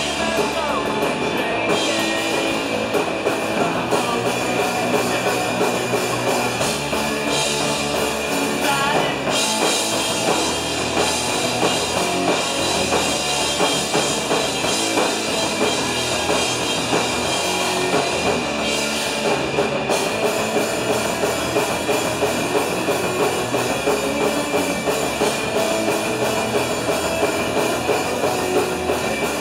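Punk rock band playing live: electric guitar and a drum kit with cymbals, loud and continuous.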